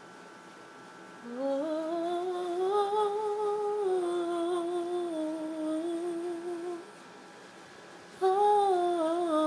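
A woman's voice humming two long wordless phrases with vibrato: the first rises and holds, then stops; after a short pause the second starts loud and falls slightly in pitch.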